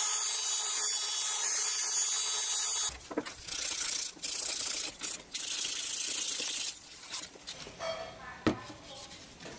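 A hand-held rotary tool runs with a steady high whine, grinding into a wooden knife handle, and cuts off about three seconds in. Then the wood is sanded by hand in several long scratchy strokes, followed by lighter scrapes and one sharp knock on the bench near the end.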